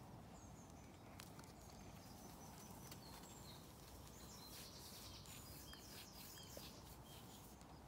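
Near silence: faint outdoor ambience with small birds chirping now and then and a brief buzzy trill midway.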